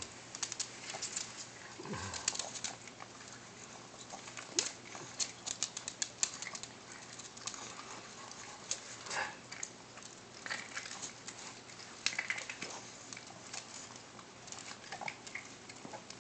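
A Chihuahua and another small dog chewing and licking rib meat from a person's fingers: a run of irregular wet clicks from mouths and teeth.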